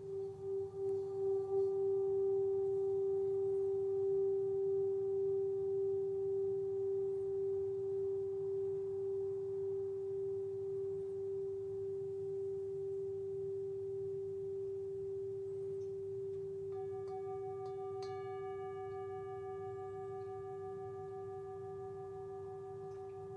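Metal singing bowl sung by a wooden mallet rubbed around its rim: one steady low ringing tone that wavers and swells over the first couple of seconds, then hangs on and slowly fades. About seventeen seconds in, a light touch of the mallet brings in a set of higher ringing overtones over the fading tone.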